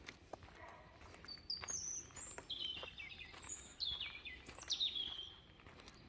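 A small songbird singing a run of high, quick notes, then several fast falling phrases in the second half. Faint footsteps on a dirt path lie underneath.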